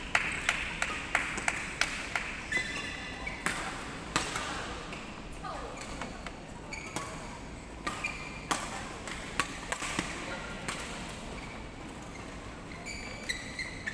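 Badminton rackets striking shuttlecocks from several courts at once: sharp pops, quick and close together for the first couple of seconds, then scattered. Short squeaks from shoes on the court mat and children's voices sound between them, echoing in the large hall.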